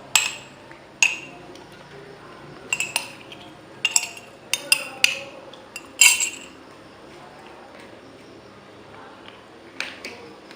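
A spoon clinking against a glass in about a dozen irregular taps, each with a short ring, the loudest a little after six seconds in.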